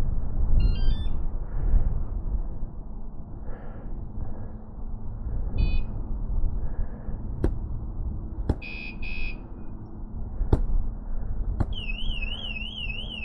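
Cheap aftermarket motorcycle alarm going off after being triggered: scattered short beeps and chirps and a few sharp clicks, then near the end a fast warbling siren tone that sweeps up and down several times a second. A steady low rumble runs underneath.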